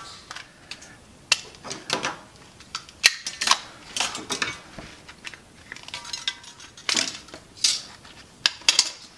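Irregular plastic clicks and clacks of a small handheld radio-control transmitter being handled and its case opened.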